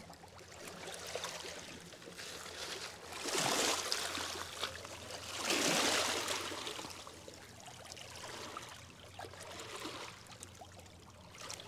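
Small river waves lapping and washing over rocks and gravel at the water's edge, swelling twice, about three and six seconds in.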